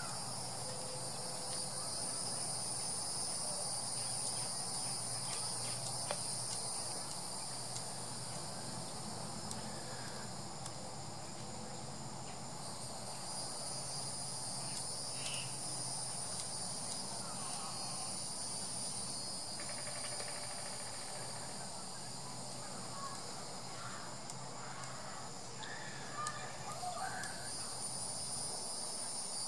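Eastern lubber grasshopper chomping as it tears through a leaf: faint, irregular clicks of its chewing, over a steady high-pitched drone of background insects.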